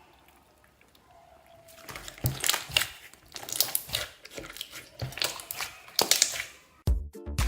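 Slime being squished and pressed by hand, a fast irregular run of crackling and popping clicks starting about two seconds in. Dance music with a beat cuts in abruptly near the end.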